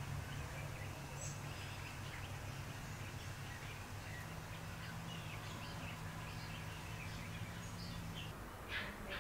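Background ambience of small birds chirping and tweeting on and off, over a steady low hum that stops shortly before the end.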